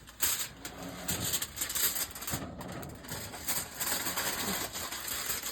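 A pot of food bubbling and sizzling on the stove, with a continuous, irregular crackle.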